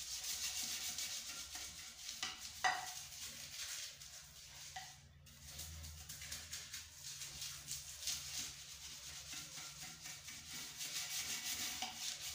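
Toilet brush scrubbing the inside of a ceramic toilet bowl lathered with cleaner: a steady swishing scrape of bristles in quick repeated strokes, with one sharp click about two and a half seconds in.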